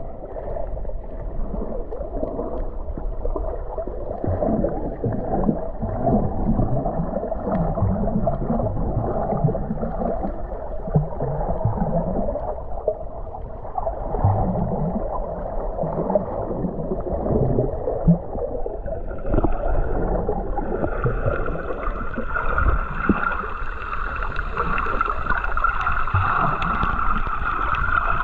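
Muffled underwater sound from a camera in a waterproof housing: water gurgling and irregular low bumps against the housing. About two-thirds of the way in, a steady whine with several fixed tones joins.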